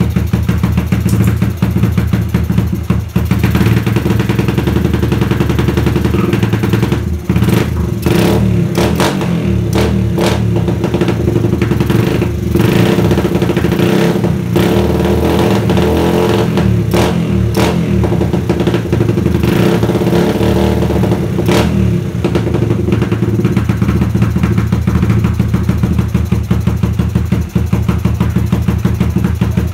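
Suzuki GD110's single-cylinder four-stroke engine idling on a newly fitted Mikuni PWK 28 mm flatslide carburetor while its air screw is adjusted, with short sharp blips through the middle. The mixture is not yet right, and turning the air screw does not cure it.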